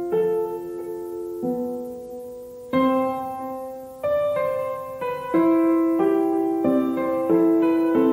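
Background piano music: notes and chords struck about once a second, each ringing out and fading.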